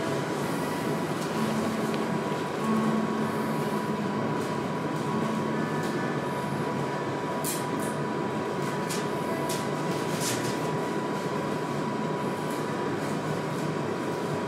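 Steady rushing room noise with a thin high steady tone running through it, and a few short, sharp clicks around the middle.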